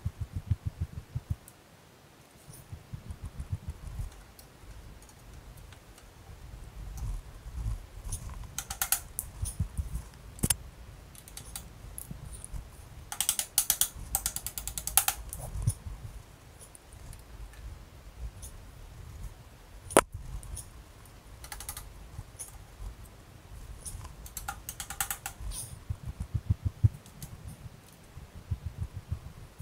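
Clicks, rattles and knocks of parts and hand tools being handled, with several short rattling runs like a ratchet wrench and one sharp knock near the middle.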